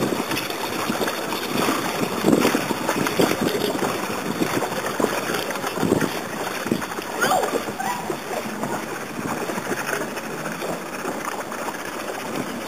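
Wind buffeting the microphone over water lapping around a floating inflatable tube, in an uneven rushing with faint voices now and then.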